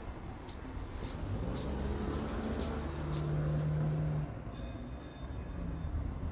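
A self-loading concrete mixer truck's engine running, a steady low hum. A tone in the hum grows louder for about a second midway, then drops back.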